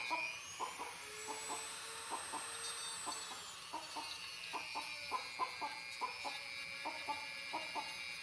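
Dremel rotary tool with a cutting wheel whining at high speed as it cuts down a rooster's keratin spur; its pitch rises at the start and falls about three seconds in. The rooster clucks in short, irregular notes throughout.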